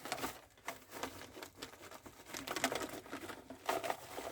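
Plastic crinkling and rustling with scattered light taps, from handling the crickets and their container while dusting them with calcium powder.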